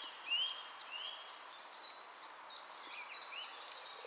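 Small birds singing: a series of short arching chirps repeated about twice a second, with shorter, higher notes over them.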